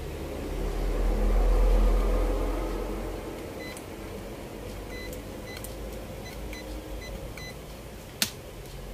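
Several short, high beeps from a digital multimeter as its probes touch parts on a TV mainboard during component testing. Under them is a low rumble that swells in the first two or three seconds, and there is a single sharp click near the end.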